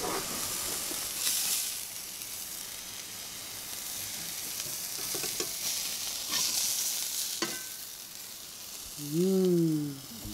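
Seared scallops sizzling in a hot skillet, with a few sharp clicks of a utensil against the pan as they are lifted out. About nine seconds in, a person gives a short hum that rises and falls.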